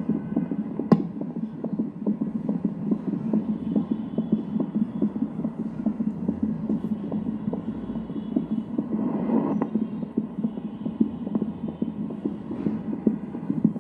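Fetal Doppler monitor relaying a fetal heartbeat through its speaker: a fast, even pulsing over a steady hum.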